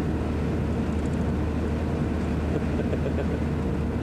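A steady low mechanical drone, even in level with a strong deep hum and no breaks.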